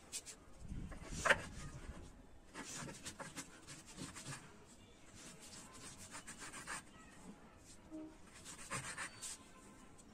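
Sticks of multani mitti (Fuller's earth clay) crushed under a stone block on a wet surface, with a sharp crunch about a second in, followed by irregular scraping and rubbing strokes as the stone and fingers grind the wet crumbled clay.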